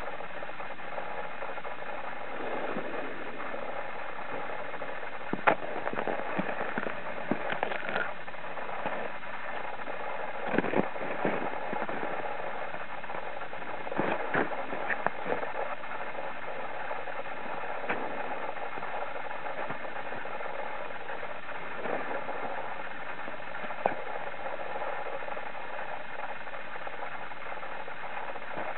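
Steady hiss of wind on a handheld camera's microphone, with scattered short clicks and knocks from handling the camera.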